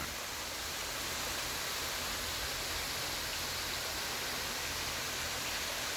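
Waterfall running heavy, a steady rushing hiss with no break or change.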